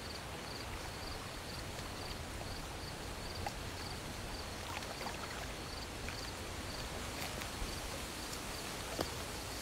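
Night ambience of a cricket chirping in an even rhythm, about two chirps a second, over a soft steady hiss of trickling water, with a faint tap about nine seconds in.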